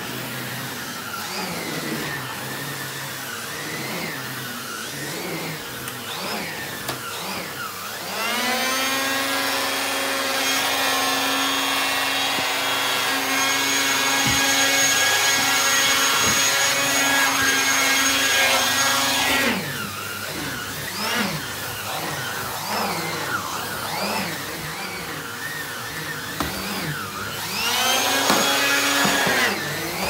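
Numatic Henry HVR200 vacuum cleaner running on its 620 W single-speed motor, pushed over carpet with an Airobrush turbo head. About eight seconds in, a whine with many overtones rises in pitch and holds for about eleven seconds before falling away. It returns briefly near the end. This is the Airobrush's air-driven brush spinning up very fast.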